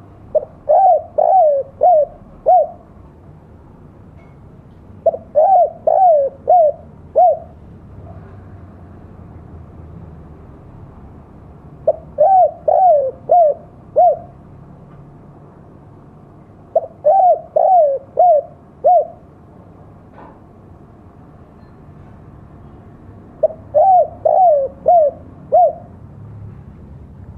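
Spotted dove (tekukur) cooing the 'kuk dua' call that dove keepers prize. Five phrases of several short coos, each phrase about two seconds long, repeated every five to seven seconds.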